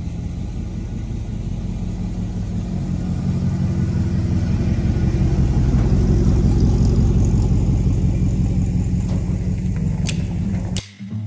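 1970 Chevrolet C10's 305 small-block Chevy V8 running as the truck drives past. It swells to its loudest about halfway through, eases off as the truck moves away, and cuts off suddenly near the end.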